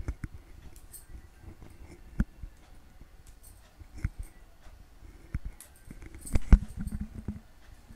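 A hand squishing and mashing wet grated bottle gourd with gram flour in a stainless steel bowl, with scattered knocks and clicks against the bowl; the loudest knock comes about six and a half seconds in.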